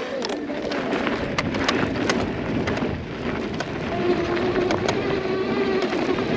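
Off-road vehicle riding over dirt: a rough noisy rush scattered with sharp ticks of gravel and dirt, and a steady motor tone that comes in about four seconds in.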